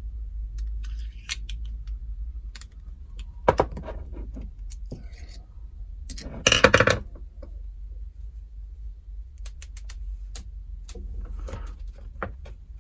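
Small metal padlock parts clicking and clinking as they are handled. About six and a half seconds in there is a short, loud ringing clatter, as a tiny component gets away.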